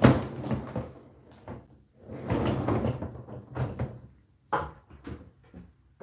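Dishwasher's wire lower basket being slid out and pushed back in on its runners: a loud clatter at the start, a rattling stretch about two seconds in, and a few sharper knocks after it.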